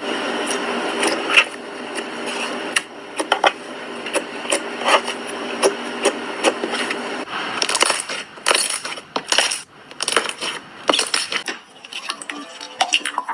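Slime being squeezed and poked, making sharp crackling pops and clicks that come thick and fast in the second half. A steady hum runs underneath for the first half and then stops.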